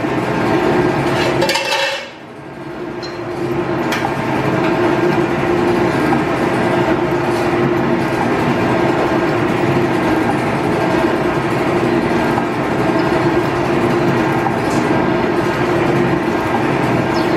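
Belt-driven G&E metal shaper running steadily, its ram stroking back and forth as it squares up a piece of hot-rolled steel. The sound dips briefly about two seconds in, then runs on level.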